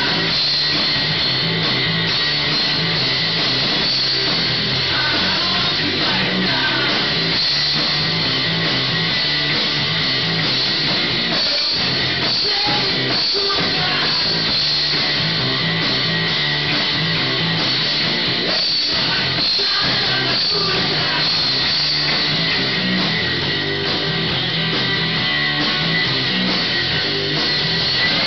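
Live rock trio playing: electric guitar, electric bass and drum kit together at a steady, full volume, heard from the audience seats.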